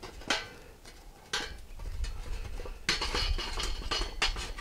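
Metal tongs clinking and scraping inside a metal charcoal chimney starter as hot charcoal briquettes are picked out. There is a single clink about a third of a second in and another a second later, then a quick run of clinks and scrapes from about three seconds in.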